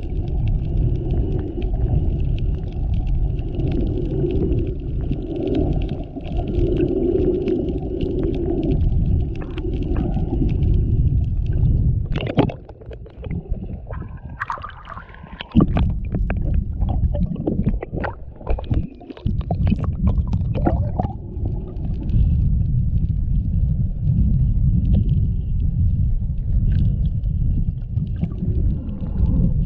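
Muffled rumbling and gurgling of moving water, picked up by an action camera held underwater while snorkeling, with scattered clicks and a quieter spell partway through.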